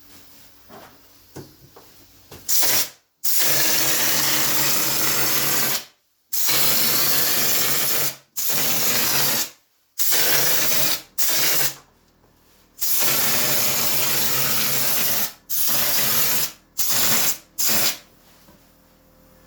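Texture spray gun spraying ceiling texture in repeated bursts of loud hiss with a steady hum underneath, each burst starting and cutting off abruptly as the trigger is pulled and released. The bursts begin a couple of seconds in and run on and off, about a dozen of them, until shortly before the end.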